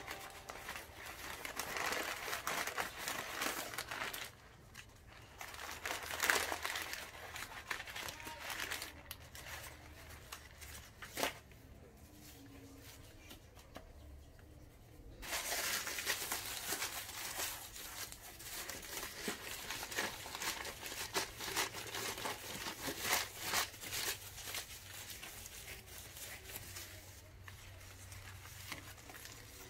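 Wrapping material crinkling and rustling as it is handled while packing a potted plant, in irregular fits and starts, with a pause of a few seconds about halfway through.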